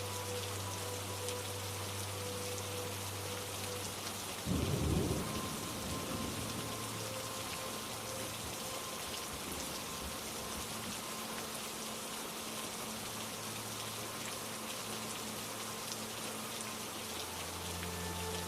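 Steady rain falling, with a short rumble of thunder about four and a half seconds in.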